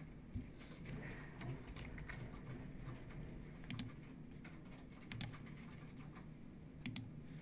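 Computer keyboard and mouse clicks: a few light taps early on, then sharp paired clicks about halfway through, again about a second and a half later, and near the end.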